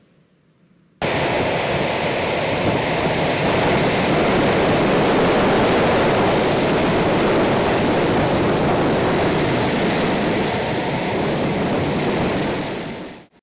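A loud, steady rushing noise, like a water or wind sound effect, that starts abruptly about a second in, swells a little and cuts off just before the end.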